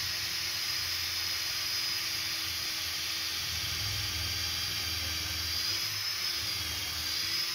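Makita cordless drill boring a pilot hole into a softwood stud, running at a steady speed with an even motor whine over the noise of the bit cutting the wood.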